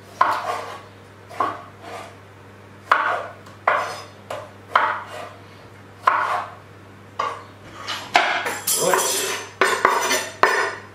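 Chef's knife chopping tomatoes on a wooden chopping board, a sharp knock with each cut about once a second. About eight seconds in it turns to a denser run of scraping and clatter as the board is tipped and the tomato pieces are scraped off with the knife into a tagine pot.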